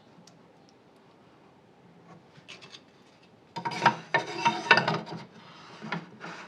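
Wood being scraped or rubbed by hand: a loud scraping spell starting about three and a half seconds in and lasting about a second and a half, then softer rubbing with a few light knocks near the end.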